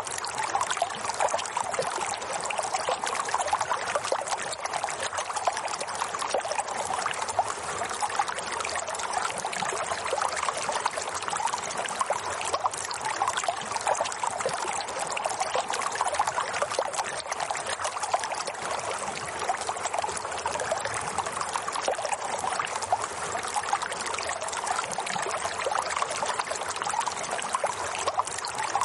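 Running water in a steady trickling, splashing flow, like a small stream, unchanging throughout.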